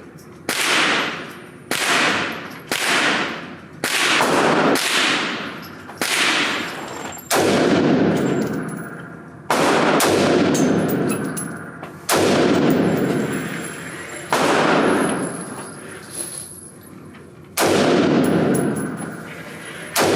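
AR-15 rifle fired in slow single shots, about a dozen, one every one to three seconds, each shot followed by a long ringing echo that fades out before the next. The shots come quickly at first and space out after about seven seconds.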